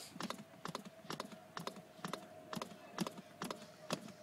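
CPR training manikin under rapid chest compressions: a quick, even run of sharp plastic clicks as the chest is pushed down and springs back.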